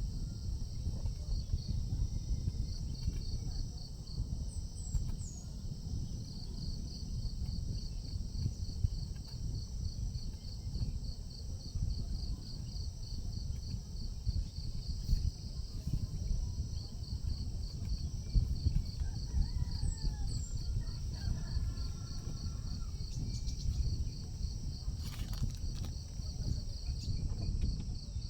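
Insects chirping in a regular rhythm, about three chirps a second, over a constant high insect drone, with a low rumble of wind on the microphone beneath. A few faint bird chirps come through now and then.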